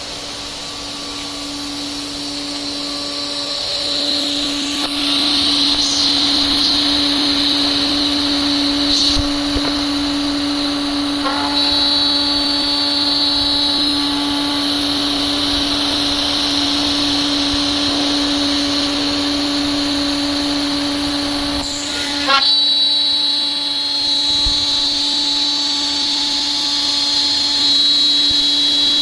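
CNC router spindle milling aluminium sheet: a steady low hum under a high, steady cutting whine that shifts a little in pitch a few times. About 22 seconds in there is a short jolt and a brief drop before the cutting resumes.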